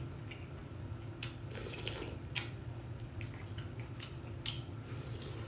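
Eating sounds from fish cake soup: scattered light clicks of utensils against a bowl, with wet mouth and slurping sounds.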